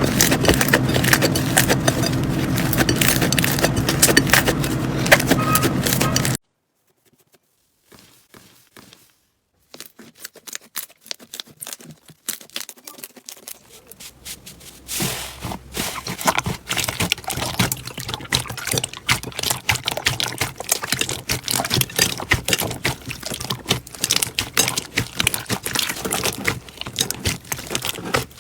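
Slime being squeezed and stretched by hand, making dense sticky crackles, pops and clicks. Before that, a steady low hum with crackling over it cuts off suddenly about six seconds in.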